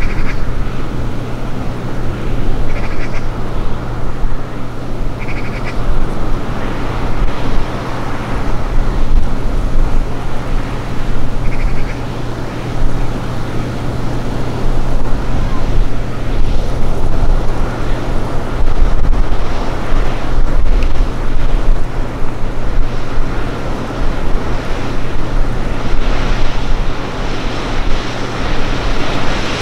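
Steady low drone of a large ship's engines under way, with wind rushing across the microphone, stronger near the end. A few brief high calls sound in the first dozen seconds.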